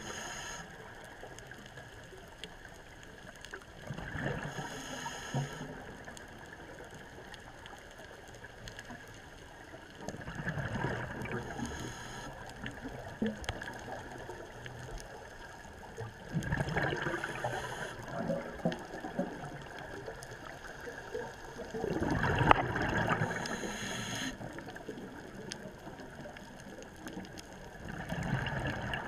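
Scuba diver breathing underwater through a regulator: a burst of gurgling exhaled bubbles about every six seconds, five breaths in all, over a steady underwater hiss.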